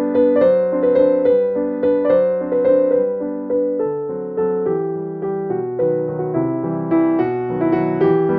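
Background piano music, single notes and chords struck at a gentle, even pace of about two a second, each fading before the next.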